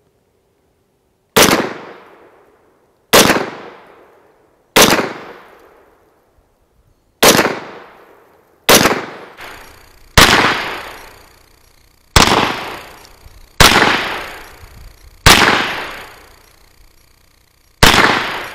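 Taurus CT9G2 9mm pistol-caliber carbine fired ten times in slow, aimed single shots, about one every one and a half to two and a half seconds. Each report dies away over about a second.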